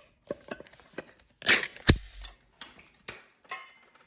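Tobacco tin being opened by hand: small clicks and scrapes of the lid, then two loud sharp snaps about a second and a half and two seconds in as the lid comes free, followed by light rustling.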